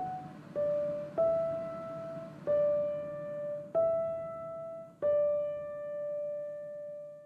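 Background piano music: a slow line of single notes, each ringing and fading, the last one held and dying away near the end.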